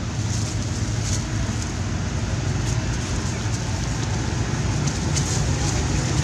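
Steady outdoor background noise: an even low rumble under a hiss, with no distinct event standing out.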